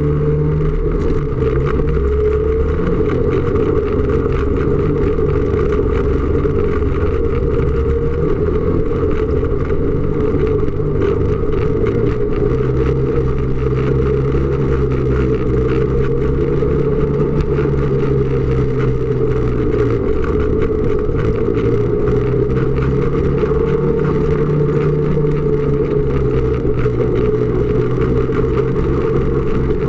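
Snowmobile engine running steadily under way along a trail, its pitch shifting slightly and dipping briefly about two-thirds of the way through.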